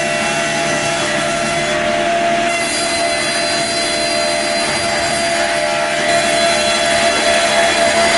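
OF-300 board edger running, its saws trimming the bark edges off a board fed in on the belt conveyor: a steady machine noise with constant whining tones. It grows a little louder about six seconds in.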